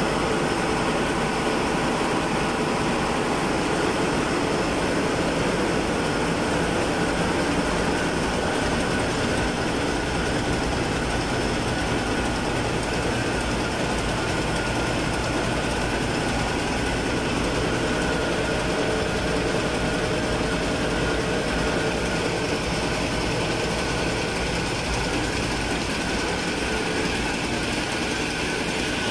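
Constant engine-room din of a ship's running diesel machinery, led by the 1000 hp Hanshin main marine diesel engine. It is a steady deep rumble with level high tones above it, unchanging throughout.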